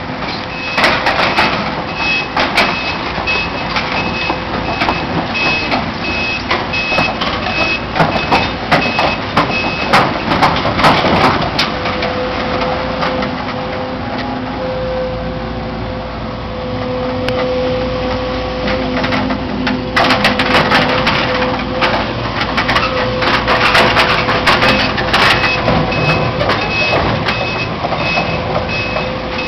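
Heavy demolition machinery working: a reversing alarm beeps steadily over the running engine, with repeated cracks and crunches of breaking debris. The beeping stops about ten seconds in and starts again near the end.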